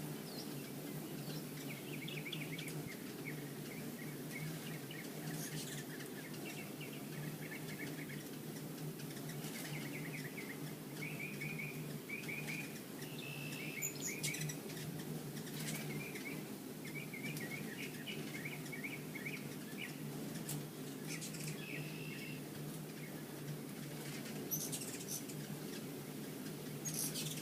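Hummingbirds chirping in short, rapid twittering runs every second or two, with a few sharp high ticks, over a steady low hum of wing buzz.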